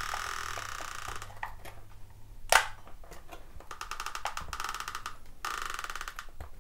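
Hot glue gun squeezed along a seam: runs of rapid clicking from its trigger feeding the glue stick through, broken by pauses, with one sharper click about two and a half seconds in.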